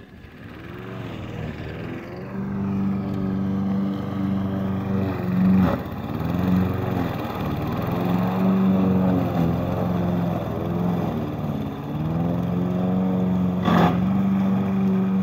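Walk-behind rotary lawn mower's small engine running while mowing, its pitch dipping and recovering. It grows louder about two seconds in, and two brief knocks sound, one around six seconds in and one near the end.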